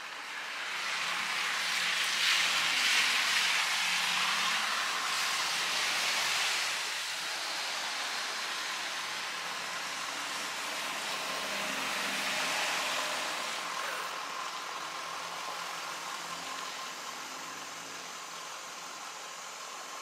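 Road traffic passing: a hiss of tyres and engine that swells up about a second in and fades after about six seconds, then swells again more softly around twelve seconds.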